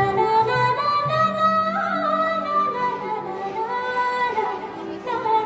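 A Sambalpuri folk song: a woman singing held notes that slide from one pitch to the next, over instrumental backing.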